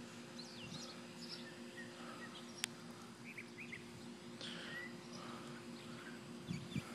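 Quiet backyard background: scattered faint bird chirps over a steady low hum, with one sharp click about two and a half seconds in.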